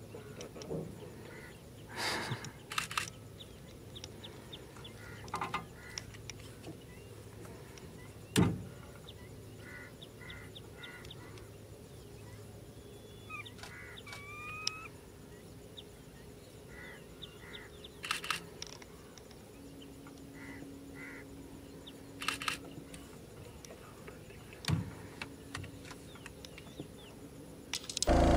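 Faint outdoor ambience with scattered bird calls: short notes in quick series of three or four, and a pair of rising whistled notes about halfway through. A few sharp knocks break in, the loudest about eight seconds in.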